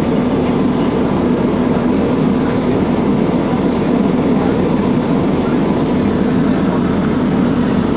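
Tatra T3 tram running along its track, heard from inside the car: a steady running noise with a constant low hum.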